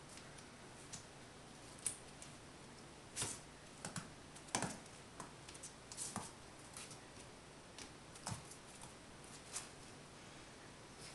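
Miniature pinscher puppy playing with a small toy on a playpen floor mat: faint, irregular light taps, clicks and scuffs of its paws and the toy. The sound is busiest between about three and seven seconds in.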